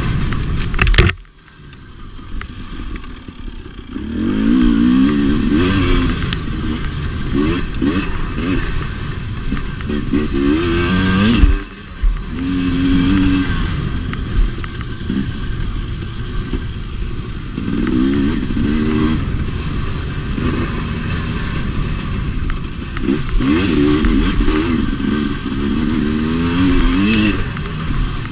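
2017 KTM 250 XC-W two-stroke engine revving up and down under racing throttle off-road. Its sound drops off sharply about a second in and builds back over the next few seconds, then dips briefly again near the middle.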